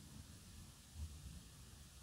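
Near silence: faint room tone, with one soft low thump about a second in.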